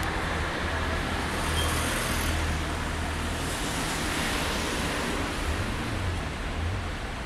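Steady street traffic noise: cars on a road making a continuous, even rumble and hiss.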